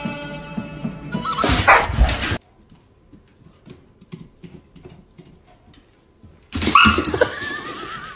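Dog barking and yelping in a loud burst that peaks about two seconds in, then a quiet stretch of faint light taps. Loud dog sounds return with a wavering high note near the end.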